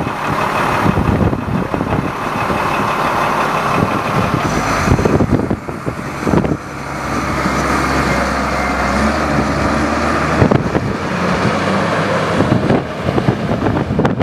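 Front-end loader's diesel engine running as the loader pulls away.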